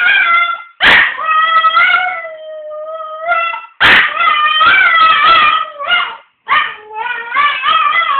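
A pet dog howling in long, wavering howls that break off and start again about every three seconds, two of them opening with a sharp yelp. It is the howl the dog gives when the phone rings.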